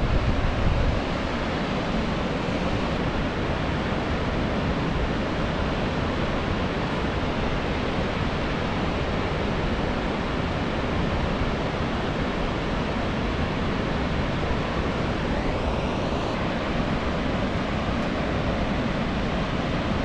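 Steady, even rushing of a mountain waterfall heard from a distance. In the first second a brief low buffeting of wind hits the microphone.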